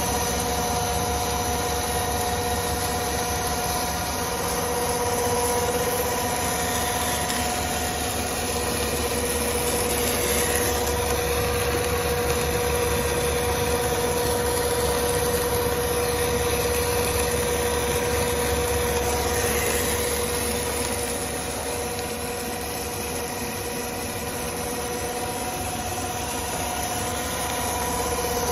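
Corn chip stick extruder and its drive motors running steadily: a constant mechanical hum with several steady whining tones over it.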